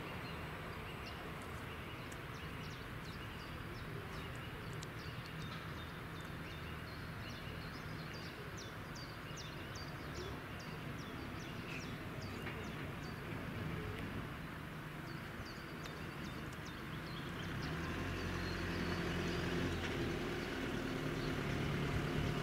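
Small birds chirping in short, irregular calls over a low outdoor background. About three-quarters of the way through, a low engine hum comes in and grows steadily louder as a vehicle approaches.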